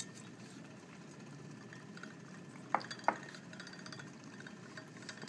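Dry ice bubbling and fizzing in a glass beaker of liquid, a steady low bubbling with two sharp clicks a little under halfway through.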